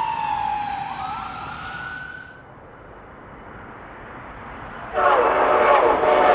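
A train horn sounding with its pitch falling steadily as the train runs away, then a briefly held higher note. After a quieter stretch, an approaching Amtrak Acela blasts its multi-note chord horn loudly about five seconds in.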